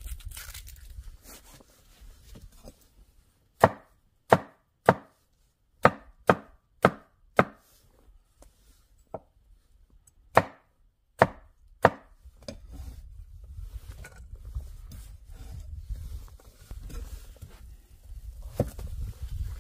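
Knife chopping on a cutting board: about a dozen sharp, separate chops spaced roughly half a second to a second apart, with a short pause before the last few.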